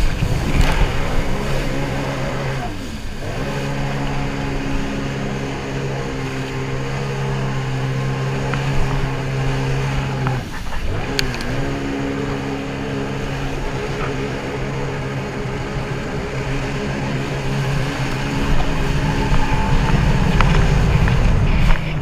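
Sea-Doo personal watercraft engine running at speed, a steady drone whose pitch drops and recovers twice, about three seconds in and about ten seconds in. Rushing wind and water spray run underneath it.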